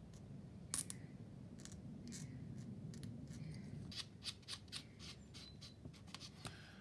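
Quiet, sharp clicks and snips of a hobby tool trimming moulding pips off a plastic model kit part, about a dozen in all, coming more often from about four seconds in.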